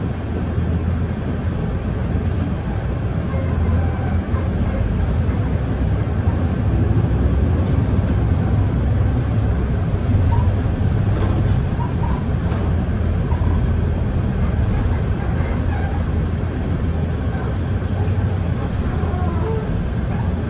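Mercedes-Benz Citaro city bus driving, its diesel engine and rolling noise making a steady low rumble that swells slightly about a third of the way through.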